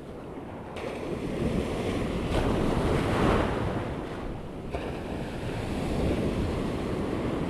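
Ocean surf washing in and breaking around the shore, with wind buffeting the microphone. The rush swells louder about three seconds in and again near six seconds as waves come through.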